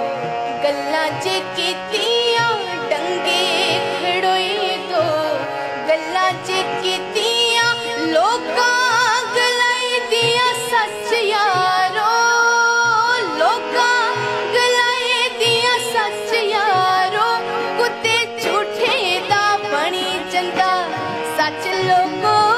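A woman singing an ornamented, wavering melody, accompanied by a harmonium playing steady held notes.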